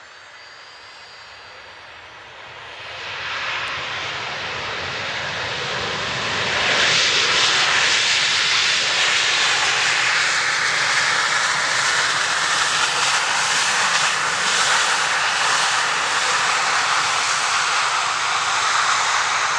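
Boeing 737-800's CFM56 jet engines roaring as the airliner rolls out after landing. The roar swells in two steps, about three and seven seconds in, then holds loud and steady, with a whine that falls in pitch midway.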